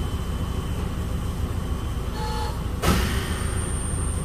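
Kominato Railway KiHa 200 diesel railcar idling at a standstill, a steady low engine rumble heard from inside the passenger cabin, with one sharp knock about three seconds in.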